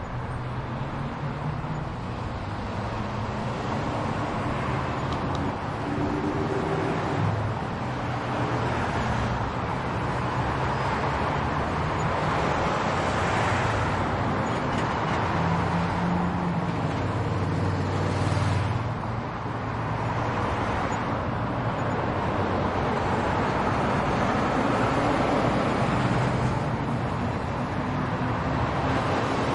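Road traffic: a continuous wash of car engines and tyre noise, with vehicles passing every few seconds, swelling and fading.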